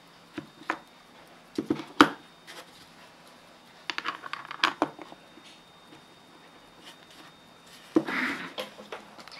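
Handling noise from a Junghans J30BZ aircraft clock's metal case and push buttons: a series of sharp clicks and knocks in clusters, the loudest about two seconds in, as it is pressed and turned over. About eight seconds in, a short scraping rustle as the clock is moved across the cloth-covered table.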